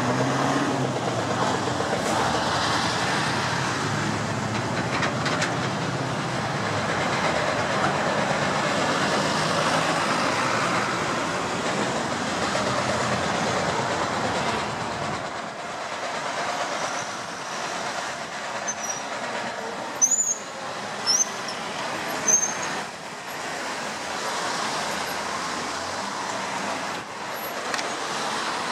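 Busy city street traffic noise at an intersection, a steady mix of idling and passing vehicles. The low rumble falls away about halfway through, and a few short high squeals come near two-thirds of the way in.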